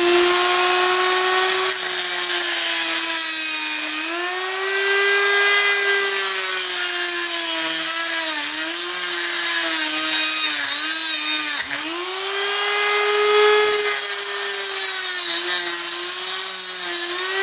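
Handheld rotary tool with a cut-off disc grinding through a steel screw to cut its head off, throwing sparks. The motor whines steadily, its pitch sagging and wavering as the disc bites, with a brief dip a little before the midpoint, over a loud gritty hiss of the grinding.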